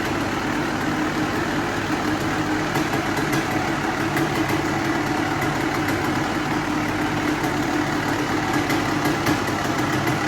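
Kawasaki KX250's two-stroke single-cylinder engine idling steadily, with no revving.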